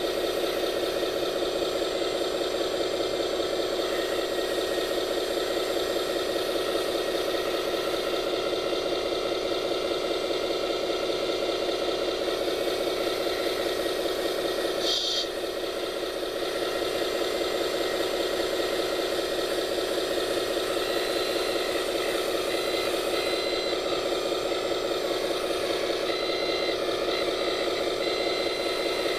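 Radio-controlled scale construction machine running steadily with a rattly mechanical hum. It dips briefly about halfway through, with a short high squeak.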